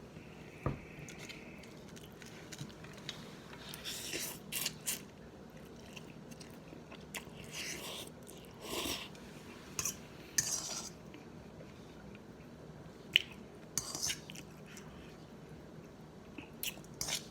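Close-miked eating of spicy cheese ramen noodles: chewing and mouth sounds in short bursts, with scattered sharp clicks of utensils against the bowl.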